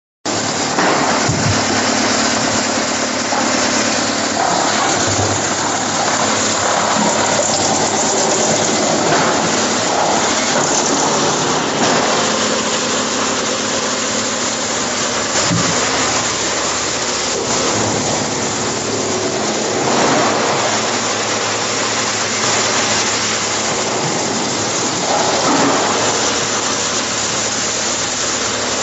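Wood chipper running at full noise, a steady loud din of machine and shredding wood with scattered irregular knocks.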